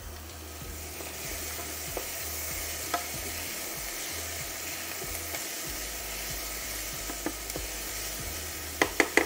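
Diced onion, carrot and celery sizzling in oil in a stainless steel saucepan, stirred with a spoon. A few light knocks of the spoon against the pan are followed by a quick run of sharper knocks near the end.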